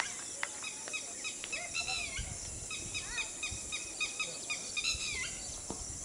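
Birds calling in the background: runs of short, high, hooked chirps repeating several times a second, with a few faint clicks.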